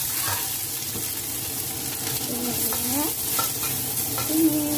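Red and green chilies, petai beans and spice paste sizzling in hot oil in a wok while being stir-fried with a spatula: a steady frying hiss with the stirring over it.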